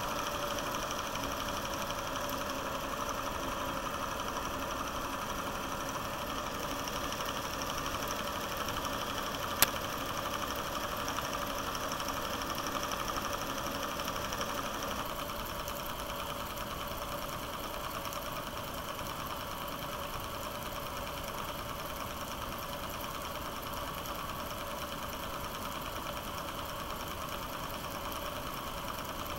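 Film projector running: a steady, fast mechanical clatter from the film transport, with one sharp click about ten seconds in.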